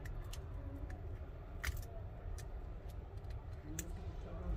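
Scattered sharp clicks and small ticks of a thin metal opening blade being worked in between the cracked screen and the frame of an iPhone 13 Pro to cut the screen adhesive. A low steady hum runs underneath.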